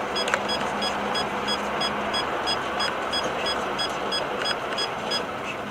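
Steady road and engine noise inside a moving car on a highway, with a string of short high-pitched electronic beeps repeating about three times a second that stops about five seconds in.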